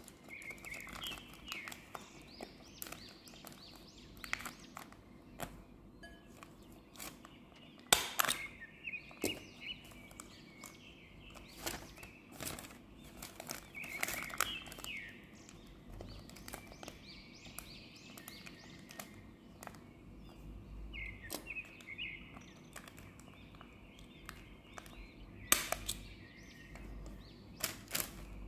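Paper being folded and creased by hand into a sandwich bag: a run of soft crinkles and taps with a few sharper crackles. Bird chirps recur in short bursts every six or seven seconds in the background.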